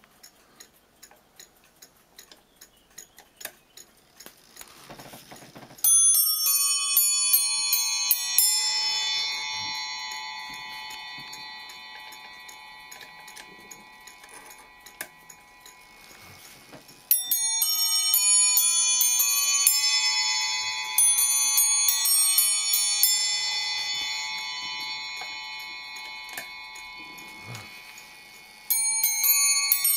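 Triple fusee bracket clock movement, freshly overhauled and running on test, ticking and then chiming on its bells: three runs of quick hammer strikes about 6, 17 and 29 seconds in, each note ringing on and slowly dying away.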